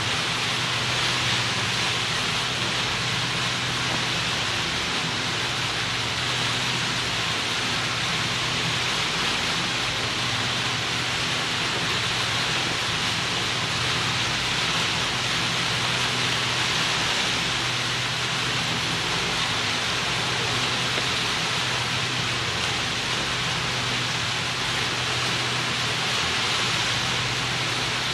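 Steady rush of water and spray, with a low, even engine drone beneath it that holds constant throughout.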